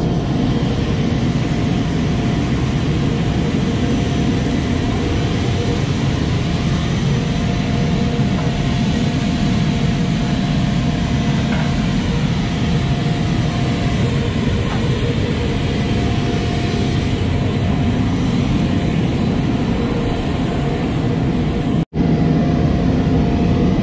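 Steady, loud jet-engine roar of a flight line, with a thin steady whine riding over it. It drops out for an instant near the end.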